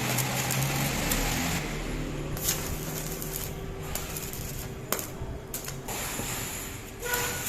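Electric arc welding crackling and sizzling in stretches, broken by short pauses with a few sharp metal clicks.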